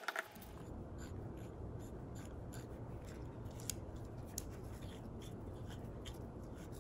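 Freshly greased hand ratchet clicking in short separate clicks, about two or three a second, as its socket is turned by hand.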